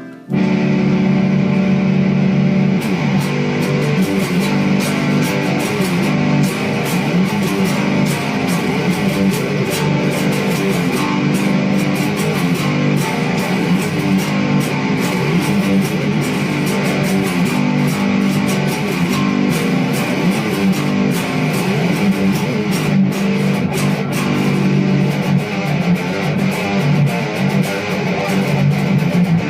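Electric guitar music in a dense full mix with many quick hits, beginning abruptly just after a cut and running on steadily.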